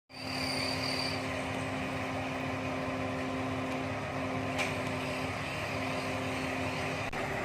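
Heavy diesel truck engine running steadily with a constant hum, the kind of sound a concrete pump truck makes at work. A short high whine sounds in the first second.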